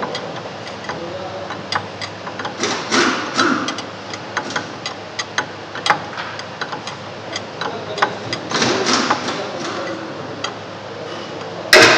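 Wrench working the adjusting nuts on a Hyundai Porter's front strut rod: irregular metallic clicks and knocks, the rod's nuts being turned to shift the wheel back and set the caster.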